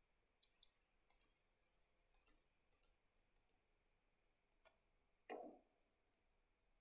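Near silence: room tone with a few faint, scattered clicks and one brief soft low sound about five seconds in.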